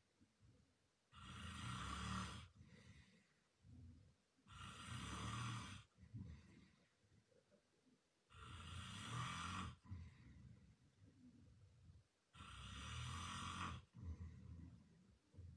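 A man snoring loudly: four long snores, each about a second and a half, coming roughly every four seconds with quieter gaps between.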